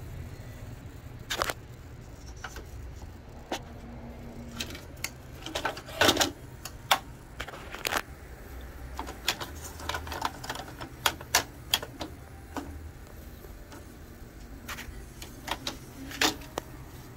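Irregular clicks and knocks of plastic and sheet-metal parts as an Oki Pacemark 3410 printer's rear tractor feed assembly is handled and fitted into the printer frame, the loudest knocks a little past the middle, over a faint low hum.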